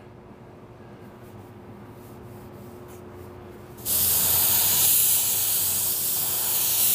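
Gravity-feed LVLP paint spray gun triggered about four seconds in, a sudden steady hiss of compressed air atomizing base coat onto a car door. The start before it is quiet.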